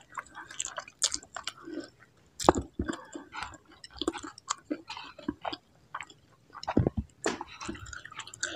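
Close-miked chewing of spicy instant noodles: irregular mouth clicks and smacks, with a couple of louder knocks, one about two and a half seconds in and another about seven seconds in.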